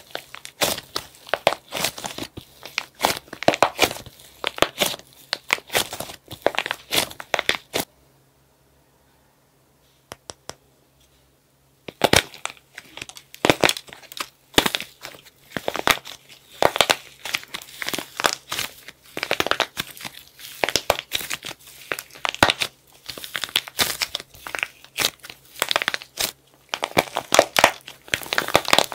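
Dried plaster clay crackling and crunching as hands squeeze it and break its hard crust, a dense run of sharp crackles. The crackling stops for about four seconds partway through, with a few faint ticks in the pause, then starts again.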